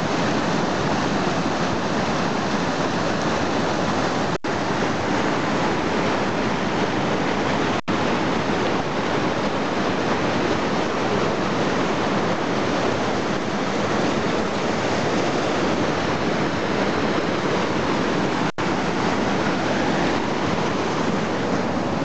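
Steady rushing of a white-water mountain stream cascading over granite boulders. The sound cuts out for an instant three times.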